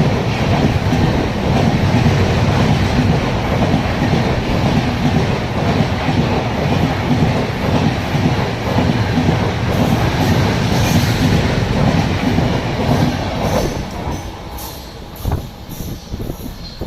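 Train passing close by, its wheels rumbling and clattering over the rail joints, fading away after about 14 seconds with a few last knocks.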